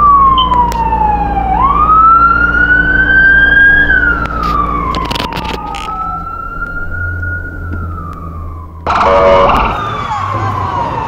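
Emergency vehicle siren in a slow rising-and-falling wail, each sweep taking about two seconds. About nine seconds in the sound changes suddenly to a short loud blast, followed by another wailing siren.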